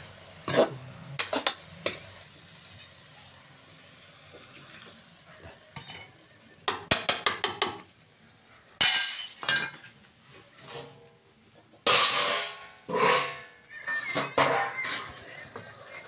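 A metal spatula clanking and scraping against a black metal kadai as vegetables are stirred and turned over a wood fire. There is a quick run of about six knocks about seven seconds in, and longer scrapes later on.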